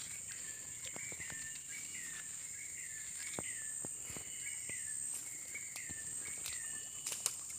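Tropical forest ambience: a steady high-pitched insect drone, with a bird repeating a short call over and over. Scattered light clicks run through it, the sharpest near the end.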